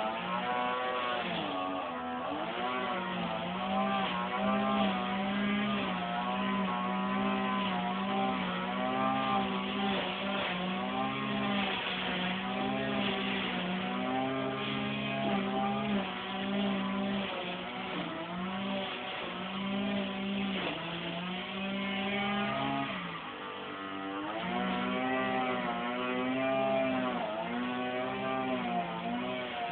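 A motor running steadily, its pitch wavering up and down every second or two, with a brief dip in the middle.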